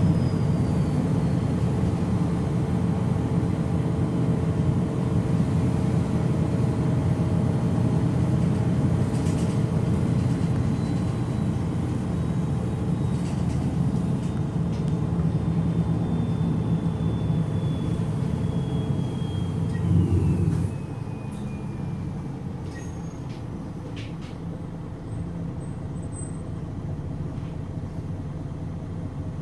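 The MAN NG313 articulated bus's horizontal six-cylinder turbo diesel (D2866) running, heard from inside the passenger cabin, with a faint high whine that slowly falls in pitch. About 20 seconds in, the engine noise drops to a quieter, steady level.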